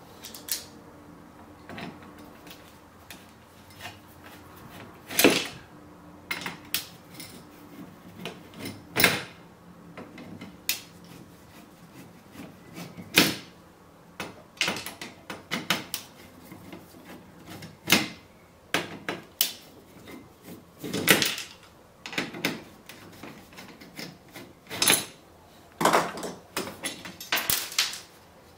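Screwdriver work on the sheet-metal back of an LCD TV panel: irregular sharp metallic clicks and knocks as screws are taken out and tools and loose screws touch the metal, spaced a second or more apart. A quicker cluster of clicks comes near the end as a thin metal bracket is lifted off.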